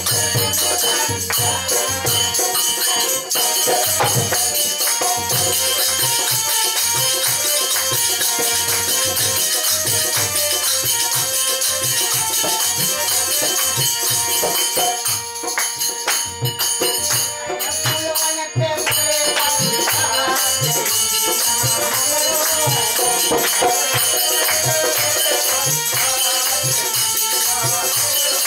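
Live Indian folk song (lokgeet) accompaniment: a harmonium playing held notes over dholak drum strokes, with jingling hand percussion keeping time. The music thins out briefly about halfway through.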